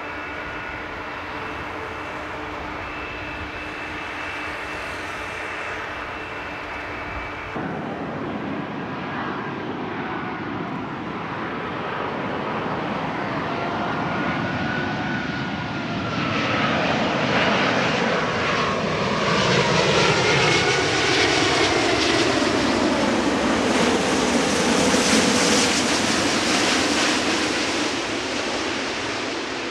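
Four-engine jet airliners: first a steady engine whine from jets on the ground, then, after a sudden change about 7.6 s in, a large jet on landing approach whose engine roar grows louder from about 16 s, with whining tones that bend in pitch as it passes, easing near the end.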